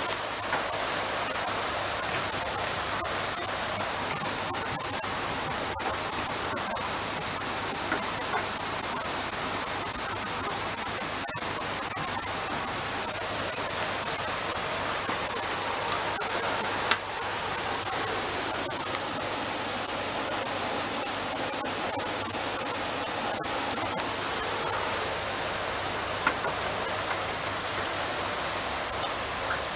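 Steady high-pitched hiss with a few faint clicks.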